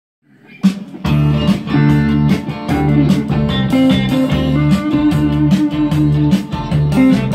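Electric guitar on a Fender Stratocaster playing a loud, rhythmic riff of punchy low picked notes, starting about half a second in.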